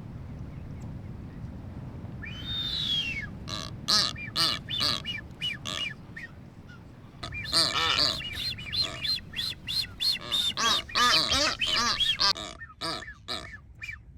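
Blue-footed boobies calling in courtship: a long falling whistle about two seconds in, then rapid series of short whistles and honks. The calls are densest in the second half and thin out near the end.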